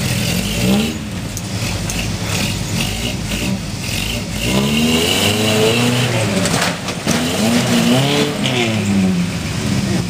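Lifted Toyota pickup's engine revving hard as it crawls up a rock ledge, rising and falling in pitch twice in the second half, with a couple of sharp knocks from the truck on the rock just before the second rev.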